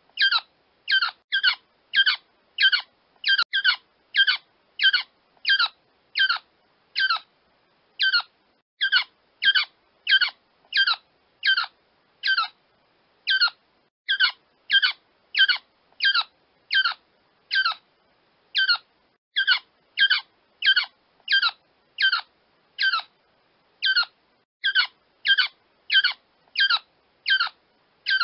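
Quail crowing: short, sharp, falling calls repeated over and over, roughly one and a half a second, with clean silence between them.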